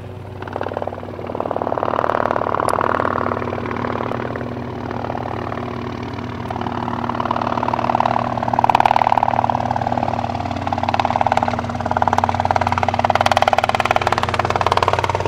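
Robinson R22 piston-engined helicopter on approach, its engine and rotor drone swelling and fading and growing louder about halfway through, over a steady low hum.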